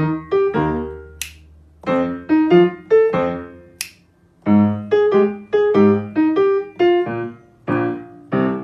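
Background music: a light keyboard melody played in short, quick phrases of struck notes that die away, with two sharp clicks, about a second in and near four seconds.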